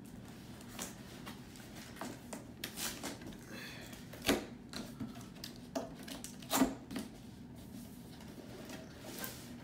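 Cardboard packaging being handled and opened by hand: scattered taps, scrapes and rustles, with two louder knocks about four and six and a half seconds in.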